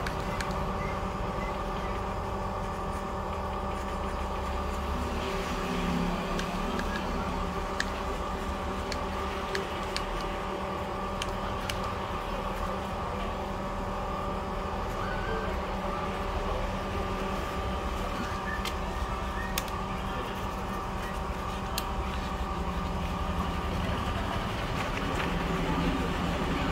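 A steady machine hum with several held tones, and scattered faint clicks over it.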